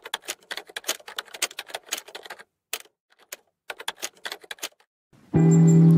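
Typing sound effect of rapid key clicks, in two runs with a short pause between them. About five seconds in, a loud sustained low musical note cuts in abruptly, the start of music.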